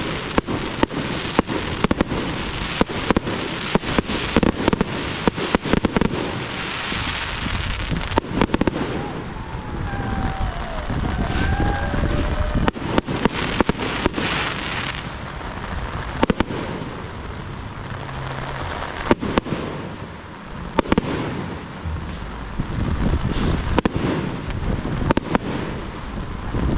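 Aerial fireworks display: many sharp bangs of shells bursting in quick succession, with a stretch of dense crackling a few seconds in.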